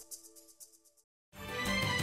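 Held notes of a music bed fading out, a short gap of silence about a second in, then a news programme's opening theme music starting and building to full level.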